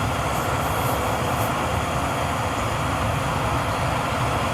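Camping stove burner running steadily under a pot of water being heated for a brew: an even, unbroken rush.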